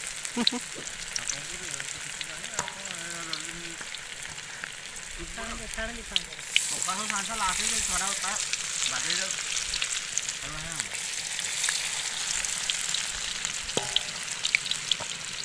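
Hot oil sizzling in a kadai: a steady hiss with scattered small pops and crackles as food fries.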